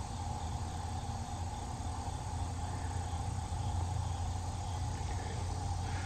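Fedelcode Type Mach 7 electromechanical siren on a 3-minute full alert, holding a steady tone over a low motor rumble.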